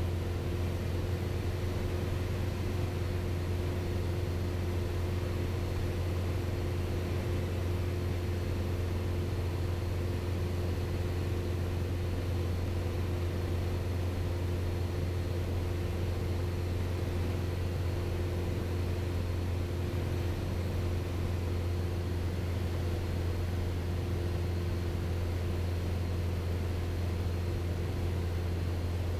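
Piper PA-28 Archer's four-cylinder Lycoming engine and propeller droning steadily at cruise power, heard inside the cabin as a low, even hum.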